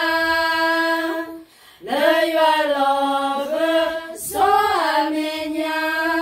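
A small group of women singing a cappella together, holding long notes that slide between pitches, with a brief pause for breath about a second and a half in.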